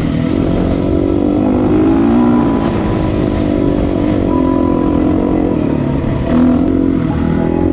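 Dirt bike engine running, its pitch rising and falling as the throttle is opened and closed.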